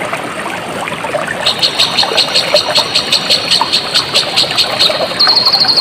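Water trickling and splashing steadily. About a second and a half in, a high-pitched animal call joins, pulsing four or five times a second. Near the end it gives way to a faster, even trill.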